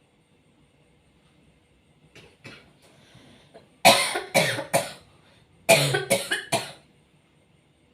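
A person coughing: a few soft coughs, then two loud bouts of three quick coughs each, about a second apart.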